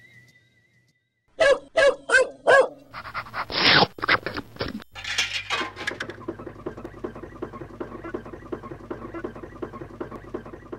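A dog barks four times in quick succession, then growls. After that a steady, fast rhythmic clatter with a low hum underneath runs on.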